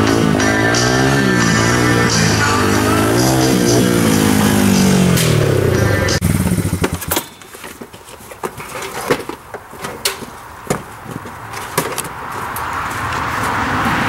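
Music over a vehicle engine whose pitch rises and falls, cutting off suddenly about six and a half seconds in. Then scattered knocks and clunks of cages and gear being handled beside a utility vehicle, with a hiss building near the end.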